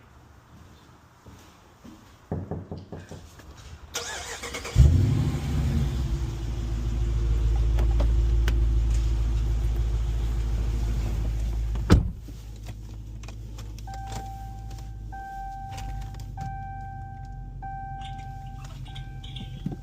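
Car engine cranked and catching about five seconds in, running loudly for several seconds, then settling to a quieter steady idle after a sharp thump about twelve seconds in. From about fourteen seconds a dashboard warning chime repeats in a series of beeps over the idle.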